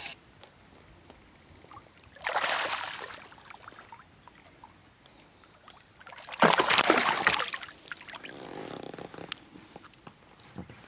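A hooked largemouth bass thrashing at the water's surface: two loud splashes, one about two seconds in and a longer one about six seconds in, then softer sloshing around eight to nine seconds in.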